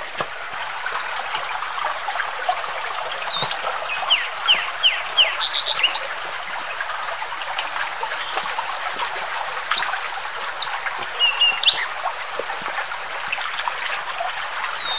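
Shallow forest stream trickling over rocks, with birds chirping now and then above it.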